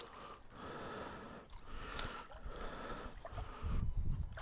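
Lake water sloshing and trickling as a sieve scoop is worked through the water to recover a metal-detector target, with a light knock about two seconds in and a low rumble near the end.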